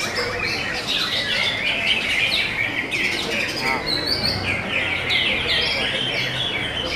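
Greater green leafbirds (cucak hijau) singing without a pause: a fast, overlapping stream of high chirps, trills and short whistles.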